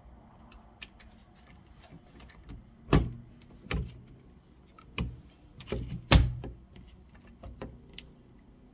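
A series of irregular knocks, clunks and small clicks from door lock hardware being handled. The two loudest knocks come about three and six seconds in.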